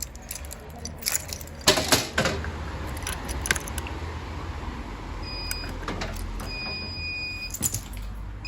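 Manual call point being operated, clicking and rattling, then from about five seconds in the fire alarm panel's buzzer sounding in a few short high beeps as it goes into fire with the system in test mode.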